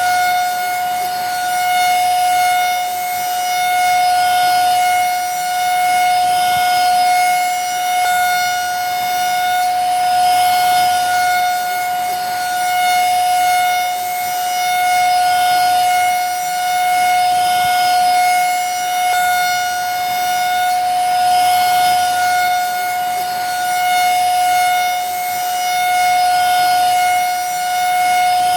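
Vacuum cleaner motor running steadily: a constant high whine over rushing air, gently swelling and easing every couple of seconds.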